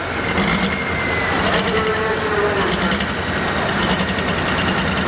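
Turbocharged diesel engine of a New Holland pulling tractor idling steadily after a pull, with a thin high whine that slowly drops in pitch.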